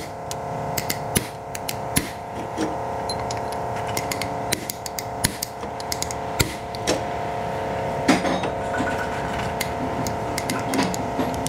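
Hammer blows on a chisel held against a driveshaft carrier bearing's inner race, driving the race down the shaft: about a dozen sharp metal strikes at irregular intervals. Music plays in the background throughout.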